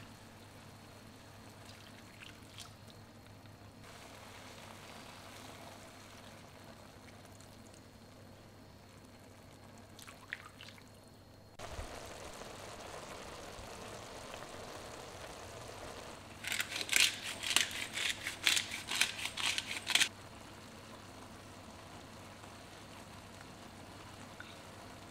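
Mushroom risotto simmering in a frying pan, with a soft bubbling. About two-thirds of the way in come some three and a half seconds of loud, rapid popping and crackling as the thick rice bubbles.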